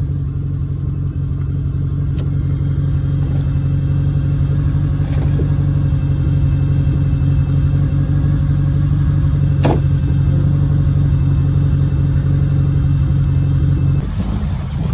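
A vehicle engine running steadily at idle, a low even hum. A single sharp knock sounds a little under ten seconds in, and the hum drops lower near the end.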